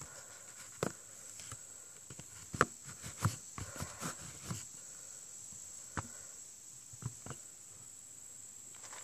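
Insects buzzing in a steady, high, even tone, with a few scattered short knocks.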